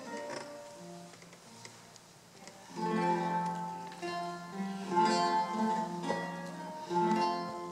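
Eight-course Renaissance lute built by Joel van Lennep, played solo with plucked notes and chords. It is soft and fading for the first couple of seconds, then louder chords with a firm bass come in about three seconds in and the plucked line carries on.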